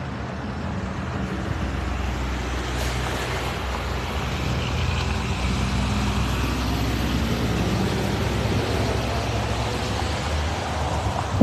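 Road traffic: a motor vehicle's engine running close by with a steady low hum that slowly grows louder, over road noise.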